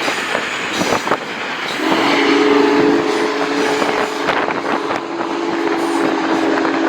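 Union Pacific Big Boy 4014's steam whistle blowing one long, steady chord that starts about two seconds in. Underneath it is the rumble and clatter of the moving train.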